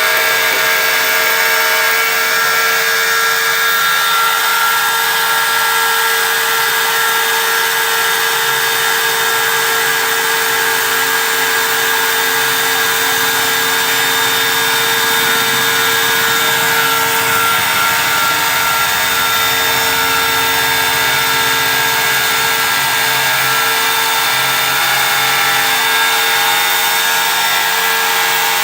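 CNC engraving machine running, its spindle cutting the workpiece with a steady whine over a constant grinding noise.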